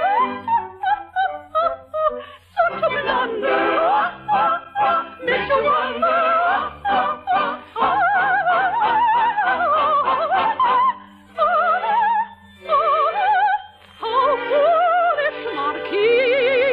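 A soprano singing an operetta aria with strong vibrato over an orchestra, moving between quick runs of short notes and long held high notes, with brief breaks. The sound is thin, with the high end cut off, as on an old radio broadcast.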